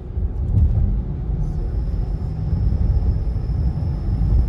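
Steady low road rumble of a moving car, heard from inside the cabin.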